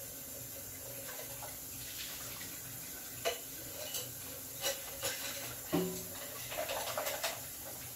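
Water running while a bucket and paintbrushes are rinsed out, with brushes and bucket clinking and knocking several times from about three seconds in.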